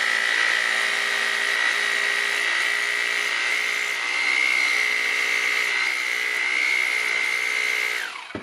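Bosch GBH 2-26 DFR rotary hammer drill running steadily in hammer-drill mode on a test run after new brushes, striker and O-ring, its motor giving a high steady whine. Near the end it is switched off and the whine falls away as it spins down.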